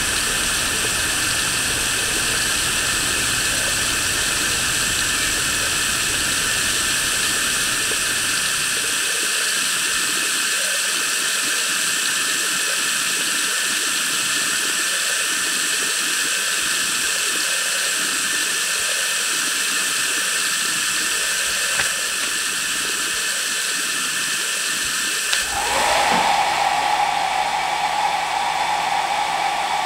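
A steady hiss, then near the end a handheld hair dryer switches on, its motor spinning up to a steady whine that is louder than the hiss.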